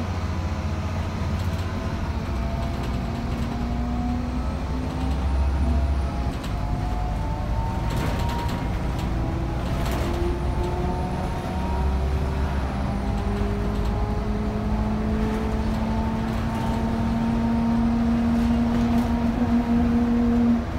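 City bus driving and accelerating, heard from inside at the front: a low engine rumble under whining drivetrain tones that rise slowly in pitch as it gathers speed, dropping back and climbing again a few times.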